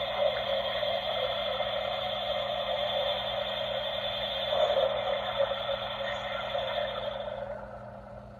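Gemmy spider eyeball coffin Halloween prop playing its sound through its small built-in speaker, tinny and narrow-sounding. Beneath it runs a faint steady hum. The speaker sound dies away about seven and a half seconds in as the prop's cycle ends.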